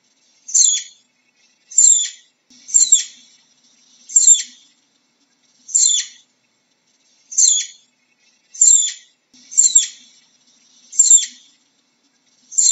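Flying squirrel giving a series of short, high-pitched chirps, each sliding downward in pitch, about ten in a row at a little over one per second.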